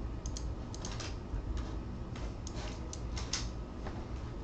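A dozen or so irregular clicks from a computer keyboard and mouse being worked while copying and pasting, over a low steady hum.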